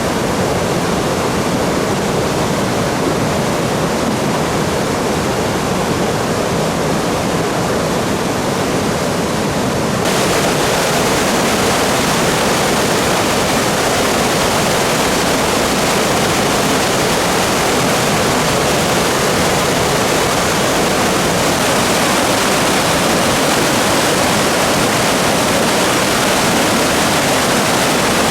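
A river in flood, swollen by record typhoon rainfall, rushing with a loud, steady roar of water. About ten seconds in the rush turns abruptly brighter and a little louder.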